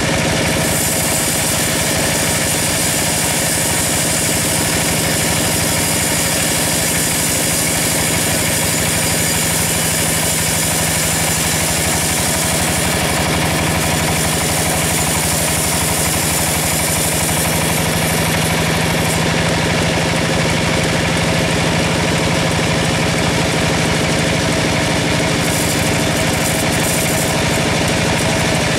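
A band sawmill running steadily, its band blade cutting through a large log with a high hissing rasp over the machine's steady hum. The rasp is strongest through the first two-thirds and drops away after about 18 seconds.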